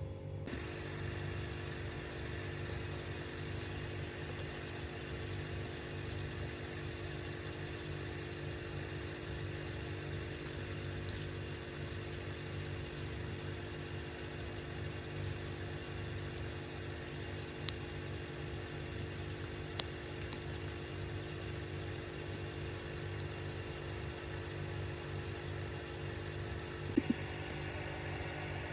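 Aquarium pump humming steadily, with a few faint clicks later on.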